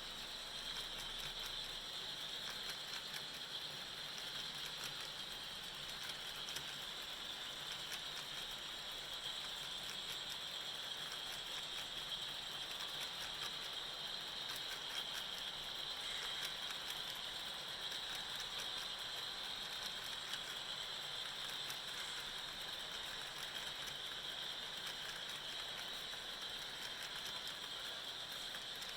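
An HO-scale model locomotive running along the track: a steady whir of its motor and gears with fast, fine clicking from the wheels.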